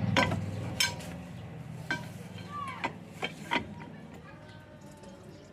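Six sharp metallic clinks of metal parts or tools knocking together, spread over the first four seconds, over a low engine hum that fades away.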